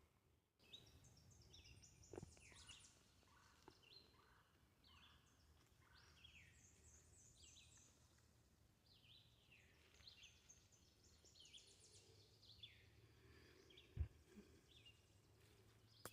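Faint songbird chirping in woodland, a stream of short, quick falling notes from several birds. There are a couple of soft low thumps, the loudest about 14 seconds in.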